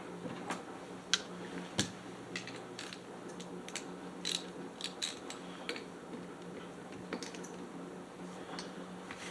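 Irregular sharp metal clicks and clinks of hand tools and small parts being handled on a chainsaw during reassembly.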